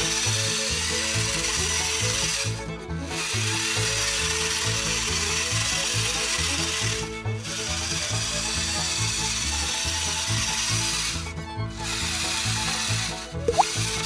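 Small electric motor and gears of a homemade remote-control toy tractor running with a steady grinding whir, cutting out briefly about four times, over background music with a steady beat.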